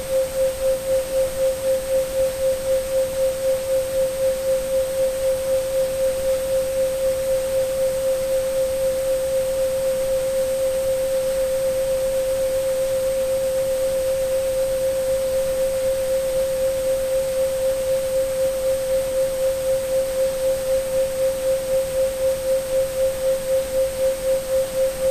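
Synthesised 528 Hz sine tone, held steady and pulsing rapidly in loudness, over a hiss of pink and white noise. A faint, thin high tone runs above it.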